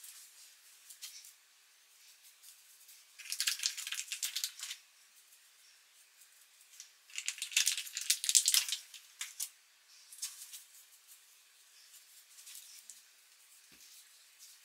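Coarse 4C hair being handled and worked close to the microphone: dry, crackling rustles in irregular bursts, loudest in two longer spells about three and seven seconds in, with fainter ones between.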